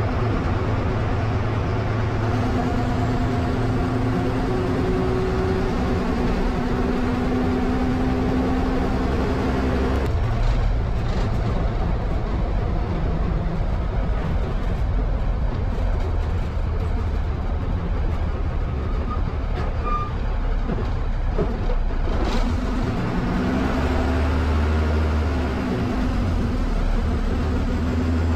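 MSRTC bus under way, heard from the driver's cab: a steady low engine and road rumble, with the engine's drone dropping away about ten seconds in and coming back a little after twenty seconds.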